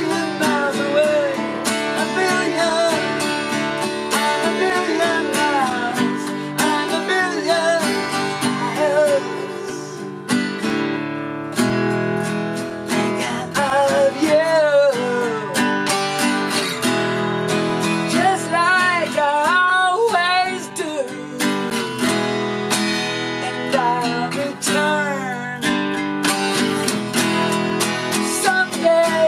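Two acoustic guitars played together as a live duo, strummed and picked in a steady song accompaniment, easing off briefly about a third of the way through.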